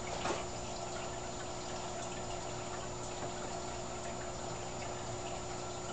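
Steady bubbling and trickling of the aquarium's filter and aeration in a 55-gallon fish tank, under a low steady hum. A brief louder sound comes about a third of a second in.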